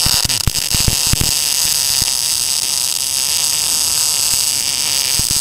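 NBC 288 MIG welder's arc on steel plate: a few sharp crackles and pops as the arc strikes, then a steady, even hissing buzz, the sign of a stable arc.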